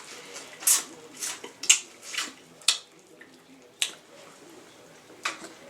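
Close-miked eating of king crab legs: shells being cracked and picked, with chewing. It comes as about seven short, sharp bursts at irregular intervals.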